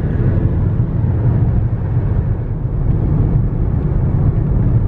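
Steady low rumble of a car driving along, heard from inside the cabin: engine and tyre noise at an even cruising speed.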